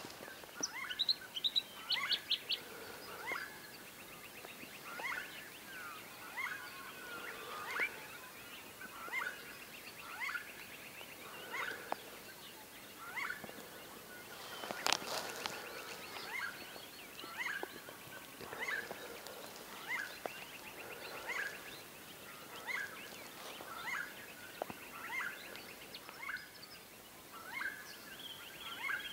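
Birds calling: one bird repeats a short downward-sliding call about once a second, with quicker trills from other birds behind it. A single sharp click comes about halfway through.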